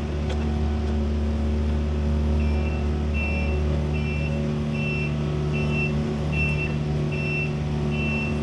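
Excavator's diesel engine running steadily, with its travel alarm beeping about once every 0.8 seconds from roughly two and a half seconds in, the sign that the machine is moving on its tracks.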